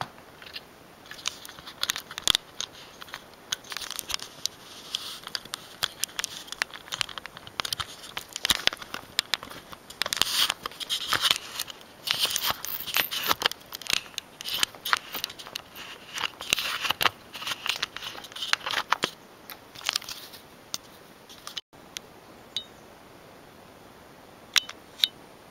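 Irregular crackling and crinkling with many sharp clicks, like plastic or packing material being handled. The sound is dense for most of the time, thins out after about twenty seconds, and leaves a few lone clicks near the end.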